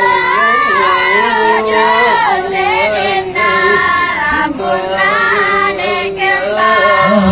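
Young girls' voices singing together in a Toraja funeral dance song, several voices gliding between long held notes. The dance song is performed as an expression of grief at the funeral.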